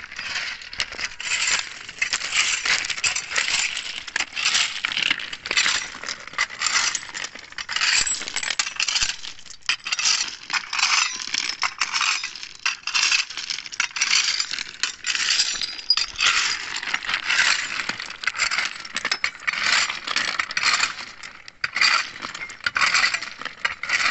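Crushed-stone railway ballast clattering and scraping in repeated strokes as a steel ballast fork is dragged through it, dressing the ballast bed.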